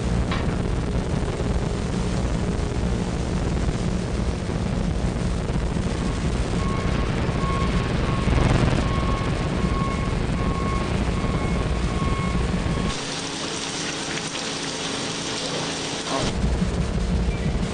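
Abstract sound-design soundscape: a dense low rumbling noise with a faint, broken high tone through the middle. Near the end the rumble drops away suddenly to a thin hiss for about three seconds, then comes back.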